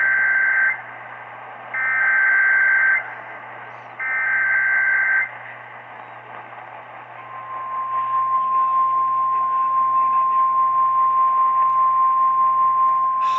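NOAA Weather Radio alert coming in over a radio with static: the end of one SAME data burst, then two more SAME header bursts, each about a second long and a second apart, followed by the steady single-pitch 1050 Hz warning alarm tone starting about seven seconds in. The sequence marks the start of a new warning broadcast, here a severe thunderstorm warning.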